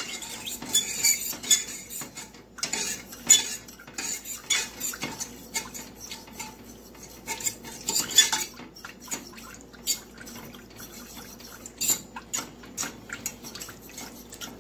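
A metal fork stirring gelatin mix and water in a stainless steel saucepan, clinking and scraping irregularly against the pan's bottom and sides.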